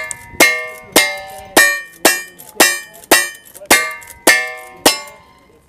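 Rapid handgun shots from a cowboy action shooter's revolver, about two a second, nine in a row. Each shot is followed by a ringing tone, the ring of the steel targets being hit.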